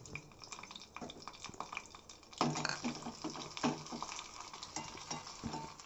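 Oil crackling with garlic slivers, dried red chillies and cumin seeds frying in a small steel pot over a gas flame. From about two and a half seconds in, a spoon stirs and scrapes against the steel pot, louder than the frying.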